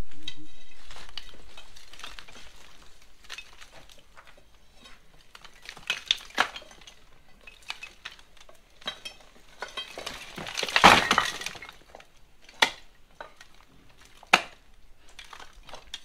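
Bricks being pulled loose by hand from the top of an old brick wall being demolished: scattered sharp clinks and knocks, with a longer clatter of falling bricks about eleven seconds in.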